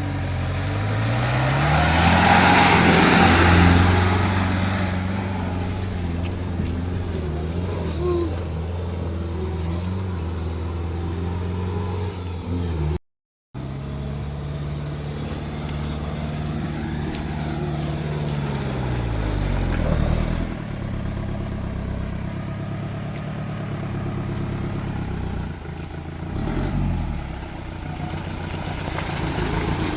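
Off-road 4x4's engine running under load, its pitch climbing at the start, then held steady, falling away about two-thirds of the way through and briefly rising and falling again near the end. A loud rushing noise swells over the first few seconds.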